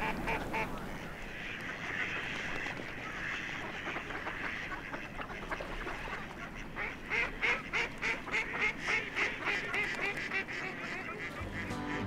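Waterfowl calling, ducks and geese: repeated short quacking and honking calls, rising to a quick run of about three calls a second in the second half, with music coming in near the end.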